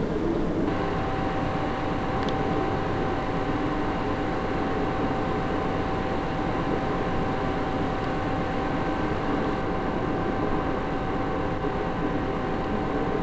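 Steady background hum and noise with a constant whine that sets in just under a second in.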